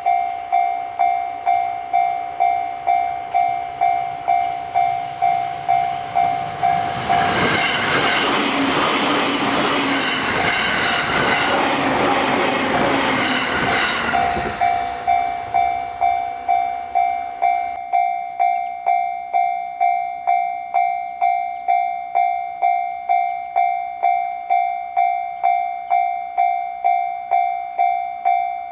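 Japanese railroad crossing warning bell ringing "kan-kan" about twice a second. A JR Sobu Line train passes through for about seven seconds in the middle, its rumble and wheel clatter drowning out the bell, which keeps ringing after the train has gone.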